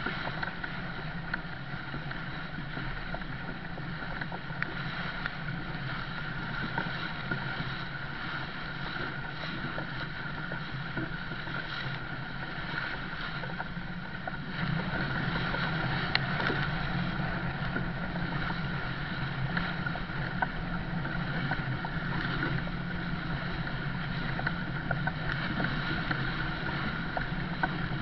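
Rush of water and wind around a sailing yacht's bow as it drives hard through choppy water, with a few faint sharp knocks; it grows louder about halfway through.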